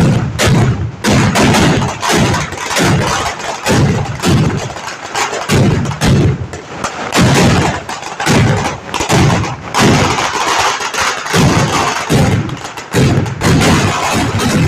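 Fireworks exploding in a rapid barrage: bangs come about every half second to a second over a continuous noisy hiss.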